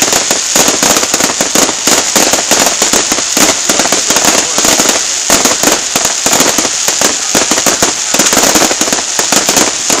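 Fireworks display: gold crackle-effect shells bursting overhead in a dense, continuous crackle of many rapid pops.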